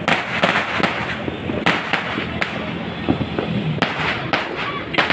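New Year's firecrackers and fireworks going off: a run of sharp bangs, several a second at times, over a constant crackle.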